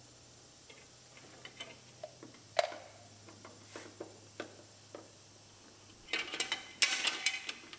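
Light scattered clicks and clinks of broken taillight plastic being worked out of a GMC Yukon's smashed rear corner, with one sharper snap about two and a half seconds in and a denser rattle of pieces near the end.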